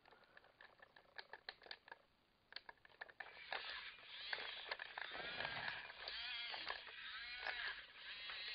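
Faint clicks, then the small electric drive motor and gears of a Siku Control Deutz-Fahr Agrotron X720 RC model tractor whining, its pitch rising and falling repeatedly as it drives.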